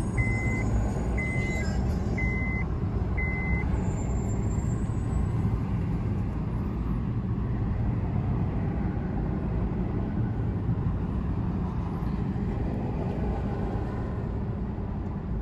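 Four short electronic beeps, about one a second, that stop after a few seconds, during immobilizer key registration. A steady low rumble runs underneath throughout.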